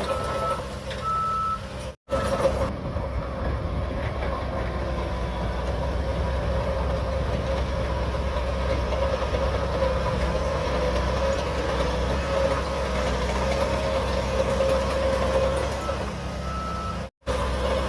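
Shantui DH17C3 bulldozer's diesel engine running steadily as it works, with its reversing alarm beeping twice near the start and once near the end. The sound cuts out for an instant twice.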